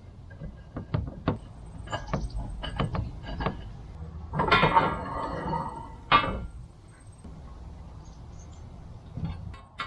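Hardware and parts of a blower rack being handled: a run of sharp clicks and knocks, then a couple of seconds of scraping and rustling about halfway through that ends in a single sharp knock.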